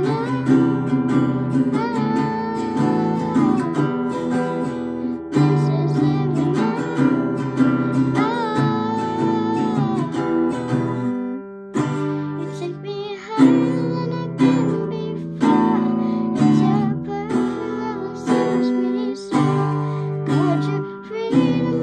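Acoustic guitar strummed in chords while a young girl sings along.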